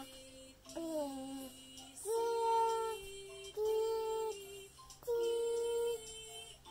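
A toddler singing a nursery rhyme along with a music track: three long held sung notes over a steady backing.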